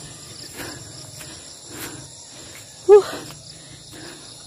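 Crickets trilling steadily in a continuous high-pitched chorus. About three seconds in comes one short, loud, pitched vocal sound.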